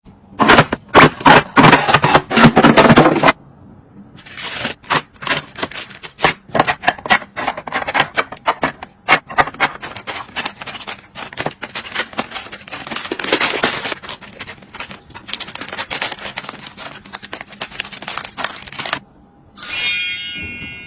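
Rapid, irregular taps, clicks and crinkling of packaging and containers being handled, loudest in a dense rustling stretch over the first three seconds. Near the end comes a short, high ringing tone.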